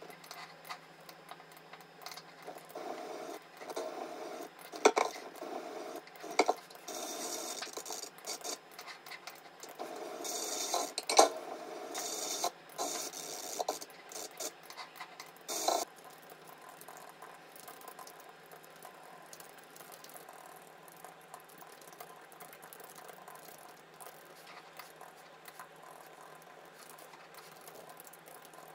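Light clicks, taps and clinks of small hard objects, with a few sharper knocks and some rustling in the first half. After about sixteen seconds only faint tapping remains.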